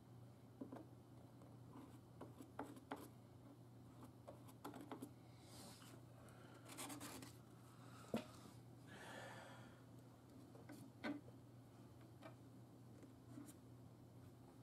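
Faint scraping, rubbing and light tapping as black epoxy is worked and scraped over a crack in a plastic car spoiler, with a low steady hum underneath.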